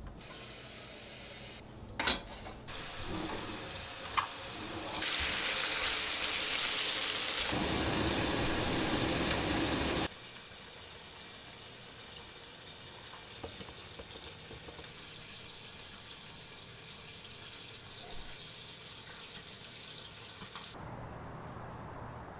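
Kitchen tap running for about five seconds and cutting off suddenly, after a couple of sharp clicks. The water is running into a vessel, likely being filled for breakfast coffee.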